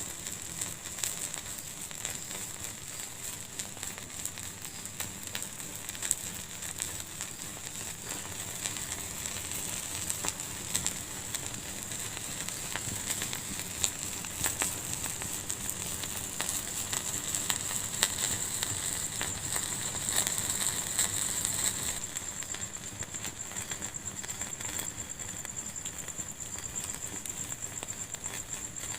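Fire burning in a fireplace: frequent sharp pops and crackles over a steady high hiss, the hiss easing a little about three quarters of the way through.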